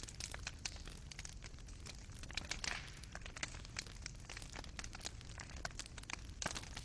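Fireplace fire crackling: irregular sharp pops and snaps from burning coals over a low steady rumble.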